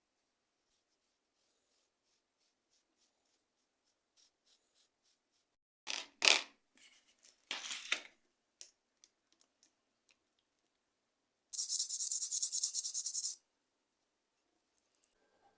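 Handling of a rusty knife and hand tools: faint scratches and clicks, two sharper knocks midway, then about two seconds of rapid high scraping near the end.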